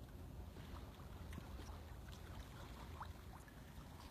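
Faint water lapping and trickling against a kayak, with a few small splashes, over a low steady rumble.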